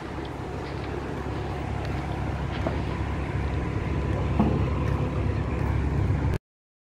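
Wind rumbling on the phone's microphone, a steady low rumble that slowly grows louder, with a few faint ticks; it cuts off suddenly near the end.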